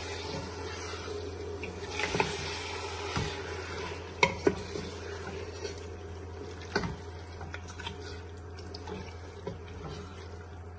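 Mutton pieces frying with a steady sizzle in an open pressure cooker while a wooden spatula stirs them, knocking against the pot a few times, about two, four and seven seconds in.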